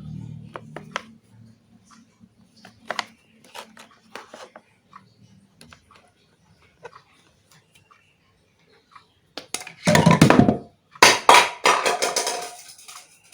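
Handling noise of small hard objects: scattered light clicks and taps, then two loud clattering bursts near the end.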